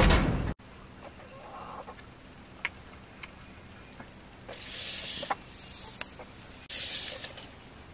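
Backyard hens clucking softly around someone's feet, with a few sharp short chirps and several brief bursts of rustling hiss. It opens with a loud half-second rush of noise that cuts off suddenly.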